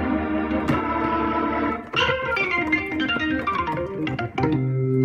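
GarageBand's B3 organ, a Hammond-style tonewheel organ emulation on an iPad, played from a Novation Launchkey MIDI keyboard: sustained chords, a fresh chord about two seconds in, then a quick run of notes stepping down and a low held chord near the end.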